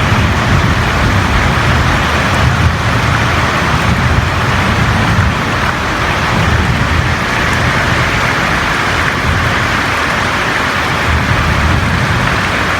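Steady, loud rain falling on a roof, a dense even hiss with a low rumble underneath.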